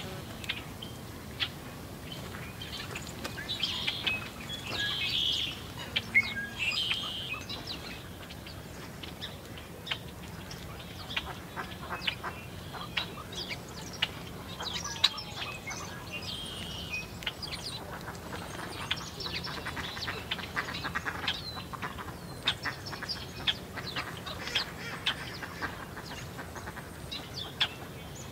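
A mix of songbirds, red-winged blackbirds among them, calling at a seed feeder: a busy run of short, sharp chips and chirps, with a few harsher, raspier calls about four to six seconds in.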